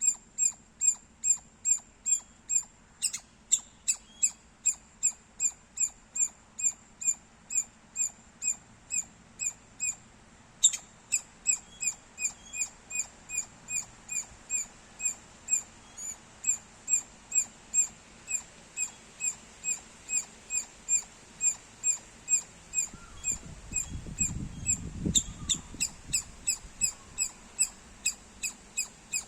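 Squirrel chirping loudly: short, high-pitched chirps repeated steadily, about two a second. A few sharp clicks come early, and a low rumble rises and fades about three quarters of the way through.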